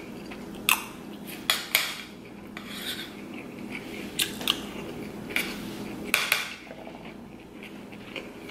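Metal spoon scraping and clinking against a plate as rice is scooped up, in a series of short, sharp scrapes, with faint chewing between them.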